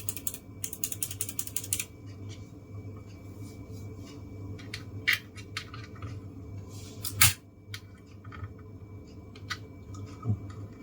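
Bare low-profile optical blue clicky switch on a Keychron K1SE keyboard being pressed quickly, a rapid run of sharp clicks for about a second near the start. After that come a few isolated clicks, the loudest about seven seconds in.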